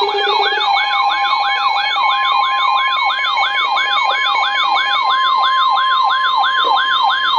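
Electronic warning siren in a fast yelp, its pitch sweeping upward over and over, about four times a second. A steady high alert tone joins it about two seconds in.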